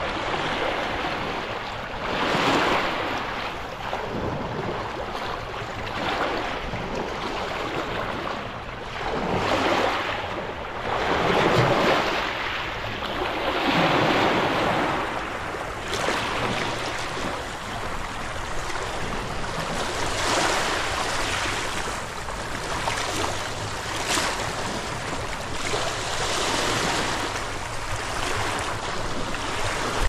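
Black Sea surf: waves breaking and washing onto the shore, the rush of water swelling and easing every few seconds.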